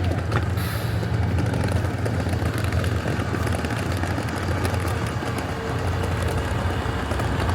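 Steady low rumble of an idling engine, even throughout, with a faint steady tone above it.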